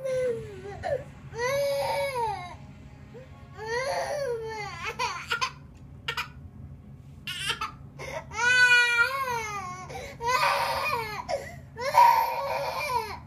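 A cranky toddler crying in a string of high wails, each about a second long with short breaks between, one a little past the middle wavering in pitch.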